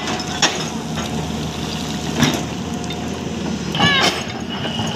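Hyundai 215 LC excavator's diesel engine running steadily while the bucket digs into rocky soil, with a few sharp knocks of steel and stone. A brief high-pitched chirping comes near the end.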